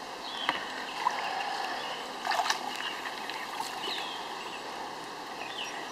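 River water sloshing and splashing around a stand-up paddleboard as a person climbs aboard, with a short cluster of knocks and splashes a little past two seconds in and a few short high chirps.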